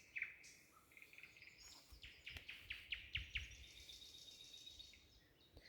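Faint songbird calls: a few high downward-sweeping notes at the start, then a quick run of descending notes a couple of seconds in.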